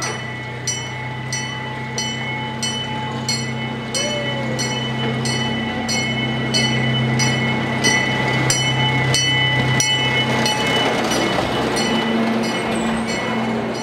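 Miniature zoo train arriving at the station: its engine hums steadily while a bell rings at an even beat, about one and a half strikes a second. The running noise of the train grows louder from about ten seconds in as it pulls up to the platform.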